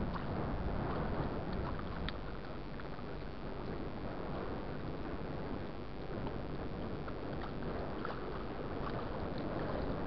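Wind buffeting the microphone over choppy, wind-rippled water lapping, with small scattered splashes and ticks.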